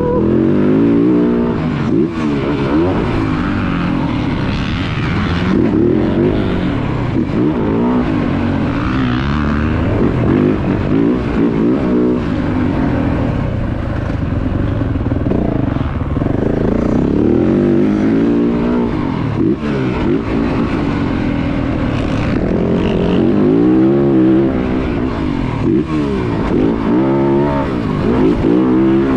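2023 Yamaha YZ450F's 450cc single-cylinder four-stroke engine being ridden hard, its pitch rising and falling again and again as the throttle is opened and closed.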